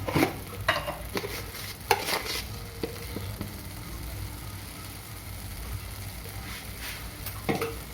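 A spoon clinking and scraping against a kadhai several times in the first few seconds, once more near the end, over a steady sizzle of fenugreek leaves and peas frying in oil.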